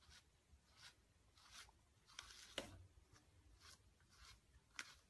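Faint, rhythmic scratchy strokes of a grooming brush through a corgi's fur, roughly one every two-thirds of a second, with a sharper click about halfway through.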